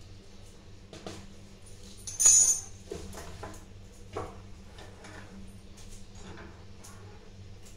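Steel pots and kitchen utensils being handled on a gas stove: a loud metallic jingling rattle about two seconds in, then scattered clinks and knocks as a plastic strainer and steel pots are set down.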